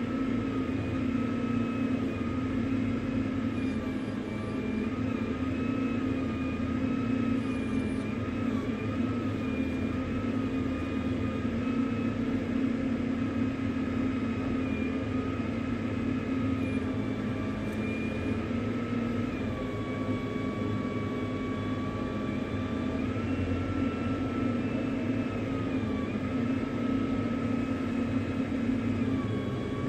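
A motor vehicle's engine running steadily, with a high whine over the hum that shifts up and down in pitch every few seconds.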